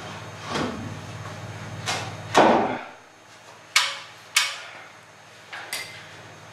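Hammer knocking on 2x4 wooden joists: several separate knocks, the two sharpest a little over half a second apart in the middle. A steady low hum runs underneath and cuts off about three seconds in.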